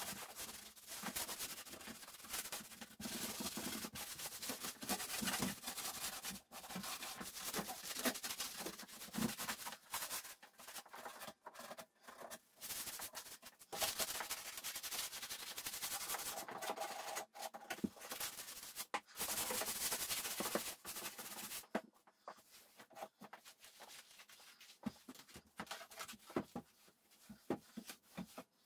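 Non-scratch scouring pad scrubbing a painted wooden door: a scratchy rubbing in uneven strokes that stops about 21 seconds in. Softer wiping with a microfiber cloth follows, with a few light taps.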